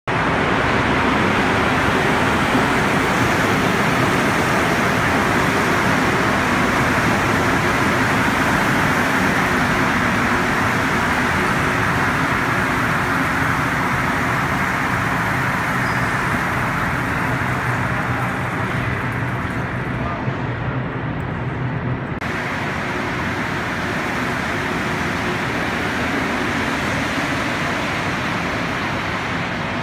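Montreal Metro MR-73 rubber-tyred subway trains running through underground stations: a steady, loud running noise with a low hum. The sound changes abruptly about two-thirds of the way through.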